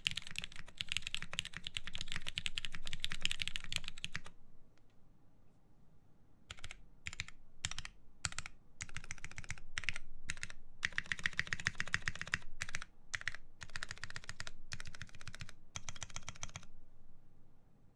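Typing on a mechanical keyboard with lubed Cherry MX Black linear switches in a full aluminium plate, under DCS keycaps: rapid keystrokes that stop about four seconds in, resume after a short pause in bursts, and stop near the end.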